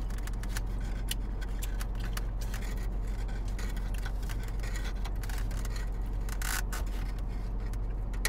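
Close-up eating sounds: chewing, with many small irregular clicks and scrapes of a plastic fork in a plastic takeout tray, over the car's steady low hum.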